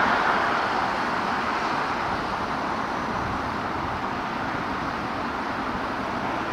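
Road traffic noise: a passing vehicle's tyre and engine rush, loudest at the start and fading to a steady hum of traffic.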